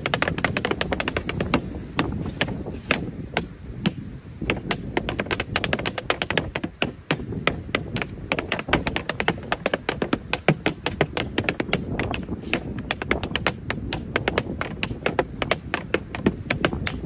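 Tap shoes' metal taps striking a small wooden board in a tap-dance routine: rapid, uneven runs of sharp clicks with a brief thinner stretch a few seconds in.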